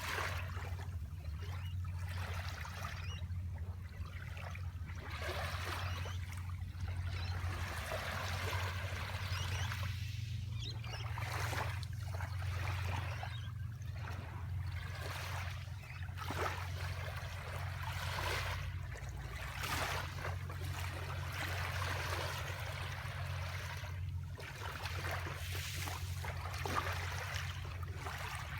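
Sea waves washing in and draining back over the shore, surging and ebbing every few seconds, over a steady low rumble.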